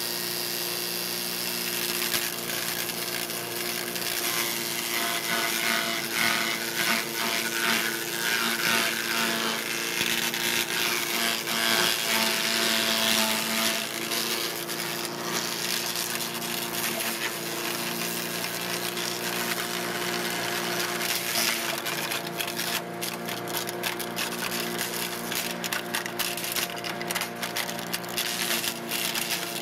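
Cub Cadet CS 3310 gas chipper shredder running at a steady speed, with the crackling, grinding noise of yard waste being chipped and shredded over its engine. The chipping is heaviest in the first half, and a run of sharp cracks and ticks comes near the end.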